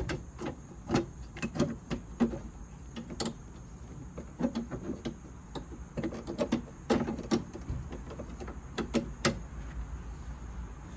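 Irregular sharp clicks and knocks, some single and some in quick clusters, as a loosened plastic car headlight assembly is worked out past the bumper and surrounding parts, over a steady low hum.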